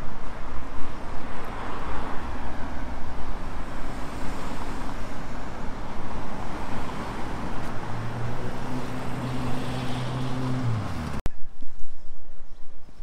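City street traffic: road noise from passing cars, with a steady engine hum joining in for the last few seconds before the sound cuts off suddenly to a quieter street ambience.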